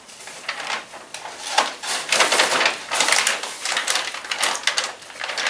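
Paper being handled, a dense irregular run of rustling and crackling that grows louder about a second and a half in.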